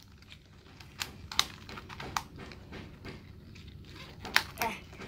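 A handful of light, sharp clicks and taps from a plastic L.O.L. Surprise ball being handled and worked open, two close together near the end.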